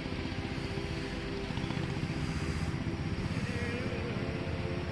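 Vehicle engine running steadily, with a rapid even firing pulse.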